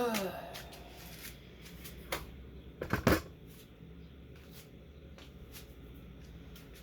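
A few sharp clicks and knocks of objects being handled, the loudest cluster about three seconds in, over a faint low steady hum.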